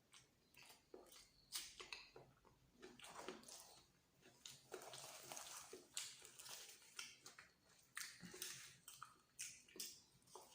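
Faint, close-up chewing and wet lip-smacking of someone eating luchi with egg masala: an irregular run of soft mouth clicks and smacks.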